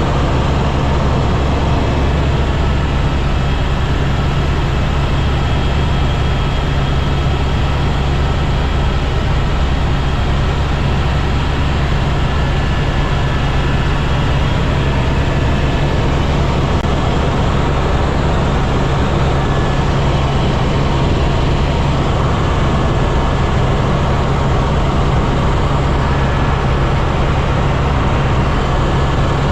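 Helicopter in flight: steady, loud rotor and engine noise with a deep rumble and a few steady whining tones, unchanging throughout.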